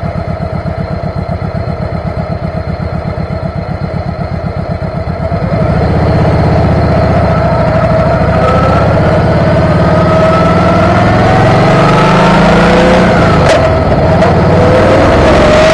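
Motorcycle engine ticking over with an even, pulsing throb. About five seconds in it gets louder and pulls away, its pitch slowly rising as it speeds up, with rushing noise building over it.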